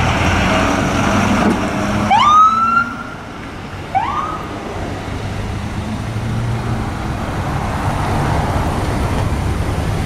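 Fire rescue truck's electronic siren giving two short rising whoops about two seconds apart, the first longer, over the rumble of its engine pulling away and the surrounding traffic.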